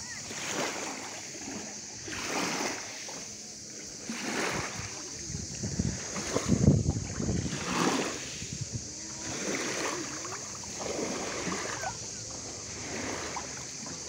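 Bare feet wading through shallow sea water over a pebble beach, splashing with each step about every second or so, over a steady hiss of the water.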